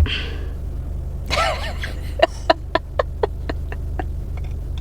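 Steady low hum inside a parked car. About a second in there is a short voice sound, and near the middle a quick run of about six light clicks.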